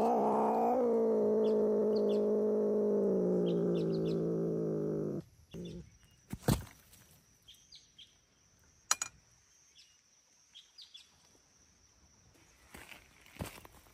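A domestic cat's long, low yowl, sinking slightly in pitch and cutting off about five seconds in: the hostile warning call of a cat squaring up to fight. After it, faint bird chirps and two sharp clicks.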